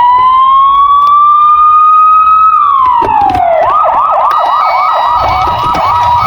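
Electronic siren of a toy ambulance. A wail rises and holds, then falls about two and a half seconds in. It then switches to a fast warbling yelp, about three cycles a second, over a two-tone beeping.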